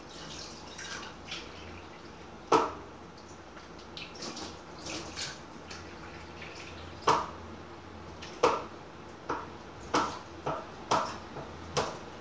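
Dishes and glasses being washed at a kitchen sink: water splashing and dripping, with about eight sharp clinks and clatters of crockery, one about two and a half seconds in and the rest coming quickly in the second half.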